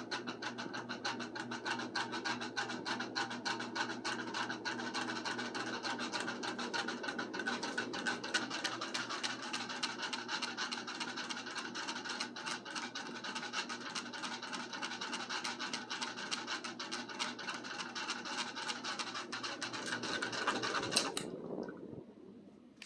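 Lasko ceiling fan running, with a low steady hum under a fast, continuous scratchy rubbing. The sound stops fairly suddenly near the end and fades over about a second.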